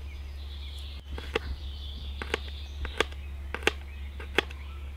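Knife cutting a garlic clove finely on a plastic board, about half a dozen sharp, irregular taps of the blade against the board from about a second in, over a steady low hum.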